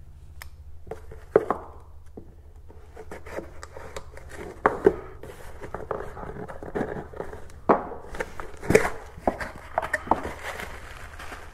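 A small cardboard parcel being opened by hand: a folding knife slitting the tape, and cardboard and paper handled and pulled apart. Irregular taps, scrapes and rustles run over a steady low hum.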